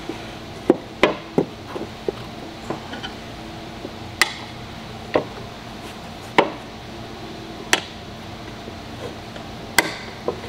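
Tire spoons knocking against a scooter wheel rim as the last bead of a 3.5x10 tire is levered on by hand: sharp clacks at irregular intervals, about nine in all.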